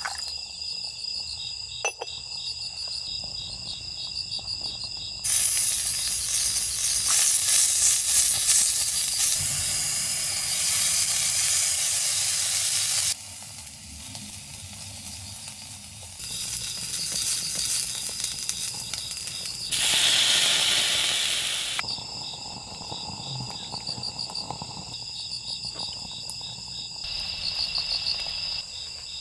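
Food sizzling and frying in a tiny pan over a small open flame, in two long stretches. Between them, steady pulsing cricket chirps and softer bubbling come through.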